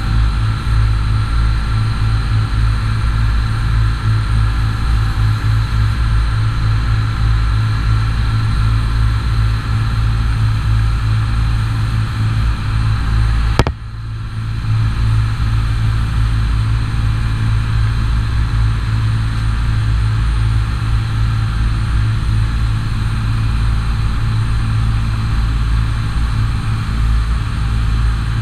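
Charter boat's engine running steadily with a low drone. There is a single click about halfway through, after which the sound dips briefly and then comes back.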